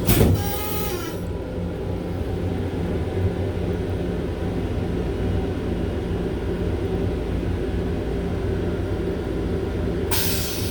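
Long Island Rail Road M7 electric railcar rumbling steadily while under way, heard from inside its restroom. A loud knock at the very start, with a high hiss that stops about a second in; the hiss starts again near the end.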